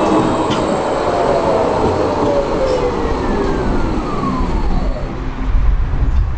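Tram slowing to a stop: its electric motor whine falls steadily in pitch and dies away about five seconds in, leaving a low rumble.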